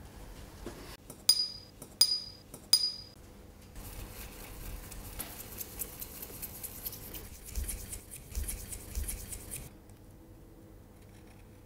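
A paintbrush clinks three times against a glass water jar, sharp ringing taps under a second apart, then the wet brush brushes and scrubs over paper for several seconds in a rough, hissing rustle that stops suddenly near the end.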